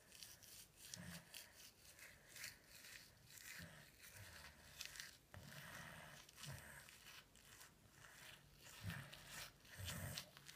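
A child's manual toothbrush scrubbing teeth: quiet, short, irregular brushing strokes, one after another.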